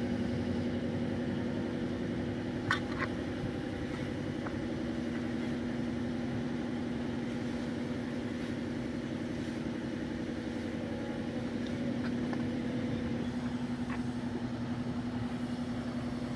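An engine idling steadily, a low even hum, with a couple of short clicks about three seconds in.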